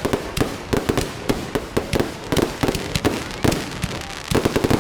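Fireworks going off: a fast, irregular string of sharp bangs and cracks, bunching into a dense volley near the end.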